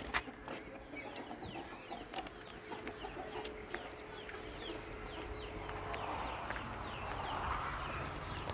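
Birds calling: a steady run of short, high, falling chirps, several a second, of the kind farmyard fowl make. From about six seconds in, a hiss grows underneath.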